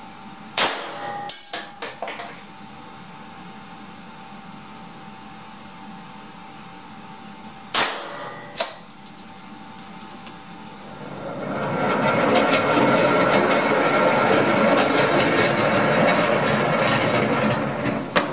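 Two pistol shots from a CZ75 SP01 Shadow in 9x21 mm, about seven seconds apart, each followed by a few lighter clinks. About eleven seconds in, the range's electric target carrier starts and runs with a steady, loud noise for about seven seconds as it brings the target back, stopping with a click.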